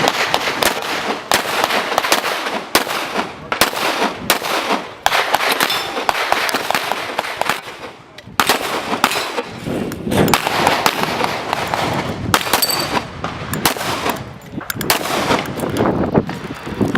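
Pistol gunfire: sharp shots at irregular intervals, about one or two a second, with a dense wash of echo and further shots filling the gaps.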